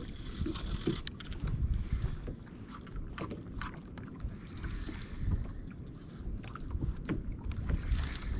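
Wind rumbling unevenly on the microphone over a small fishing boat on choppy water, with scattered short, sharp clicks.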